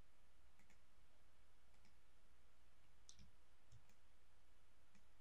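Faint, scattered clicks of a computer mouse and keyboard, about half a dozen, over a low steady hum.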